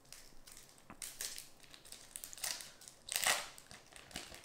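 Foil wrapper of a Pokémon booster pack crinkling and crackling as it is handled and opened, in irregular bursts with a louder crunch a bit over three seconds in.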